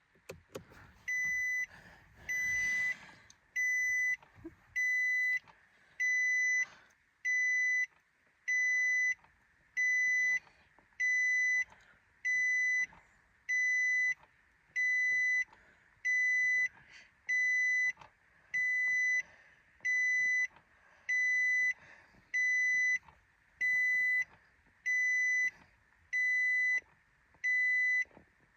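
2017 Nissan Armada's electronic warning chime beeping steadily, about one even high-pitched beep a second, with faint knocks and rustling between the beeps.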